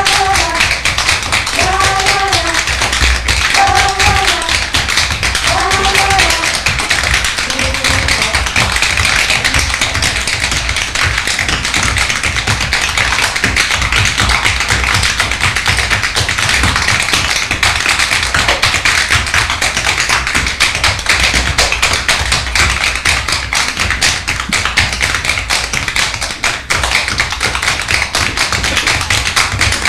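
Several dancers' shoes tapping rapidly on a wooden stage floor: a dense, continuous patter of taps, with music. During the first seven seconds a short pitched phrase repeats about every two seconds over the taps.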